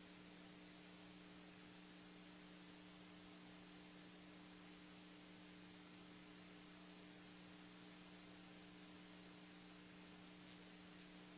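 Near silence: a faint, steady electrical hum of a few pure tones over a low hiss.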